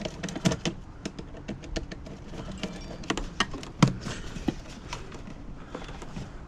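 Hand tools and engine-bay parts being handled, giving scattered sharp clicks and knocks at irregular intervals, the loudest about four seconds in.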